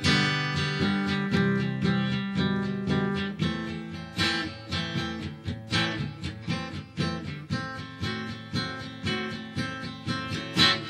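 Background music: a solo acoustic guitar strumming chords in a steady rhythm, the closing bars of a song after the singing has stopped, with a last, louder strum near the end.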